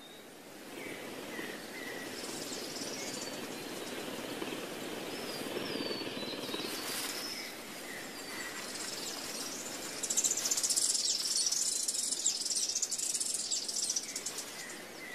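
Outdoor natural ambience of small birds calling: repeated short chirps and little whistled notes over a steady background hiss, turning into denser, louder high-pitched chirping from about ten seconds in.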